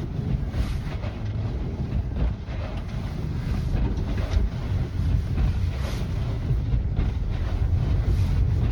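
A car driving through snow: a steady low rumble of engine and tyres, with wind buffeting the microphone.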